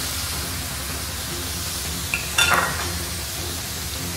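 Food sizzling steadily in a frying pan on a gas stove as it is stirred, with a brief clatter of a utensil against the pan about two and a half seconds in.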